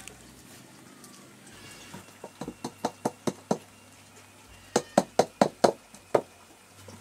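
A woven basket being knocked over a cooking pot to shake out the last bits: two quick runs of about six sharp knocks each, the second run louder, after a single sharp click at the start.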